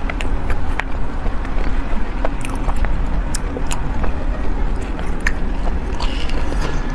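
Close-miked chewing of a soft pastry, with many short wet mouth clicks over a steady low rumble. A metal spoon scoops from a paper tray, and another spoonful goes into the mouth near the end.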